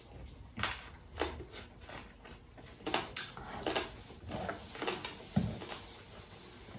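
Close-miked mouth sounds of people eating with their hands: irregular chewing and smacking clicks, with one low thump about five seconds in.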